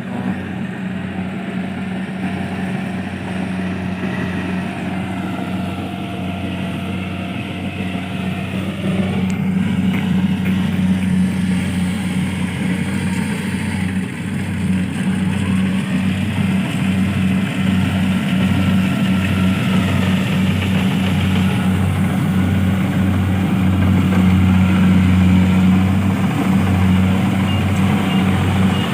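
Engine of a rice harvesting machine running steadily with a constant low hum, getting louder about nine seconds in.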